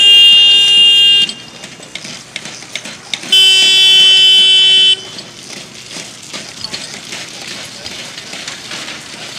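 Two long, loud blasts of a horn at one steady pitch, each lasting about one and a half to two seconds. The first is already sounding at the start and the second begins about three seconds in.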